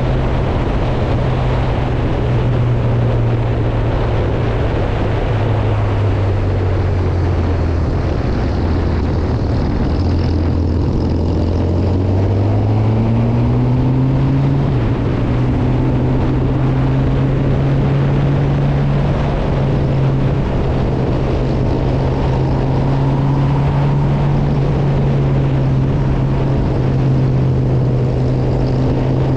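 Honda CB1000R's inline-four engine running steadily under a constant rush of wind and road noise. Its note drops a few seconds in, holds lower for several seconds, then climbs back up about halfway through and stays there.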